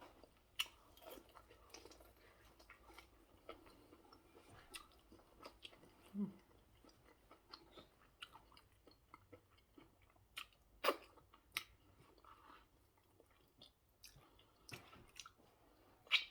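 A person chewing and biting food close to the microphone: quiet, irregular wet chewing with scattered crisp crunches and clicks, the sharpest about eleven seconds in and again near the end.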